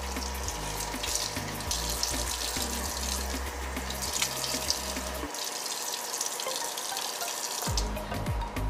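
Water running from a tap into a sink, with splashing as a face is rinsed, over background music with a repeating bass beat that drops out for about two seconds near the end.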